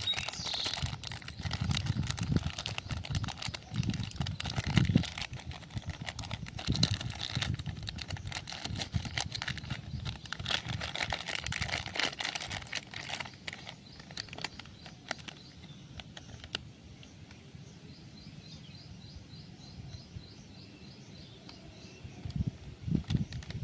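Plastic candy wrapper crinkling and rustling with clicks of handling. It then quietens, and a bird chirps in a quick repeated series.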